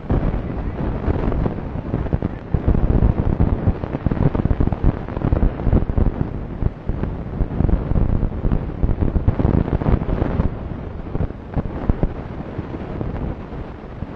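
Wind buffeting the microphone: a loud, gusty rumble that rises and falls irregularly, strongest in the low range.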